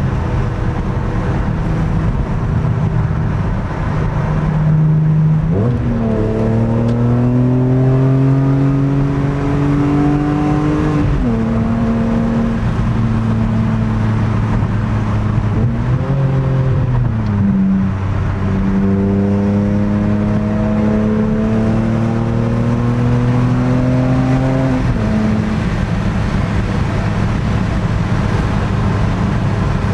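BMW E46 M3's straight-six engine with a GruppeM intake and SMG II gearbox, heard from inside the cabin at motorway speed: engine pitch jumps up on downshifts about six and sixteen seconds in and drops on upshifts about eleven and twenty-five seconds in, rising steadily through the revs between shifts. Road and tyre noise runs underneath.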